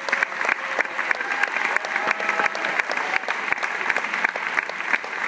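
Audience applauding: many hands clapping steadily in a large hall.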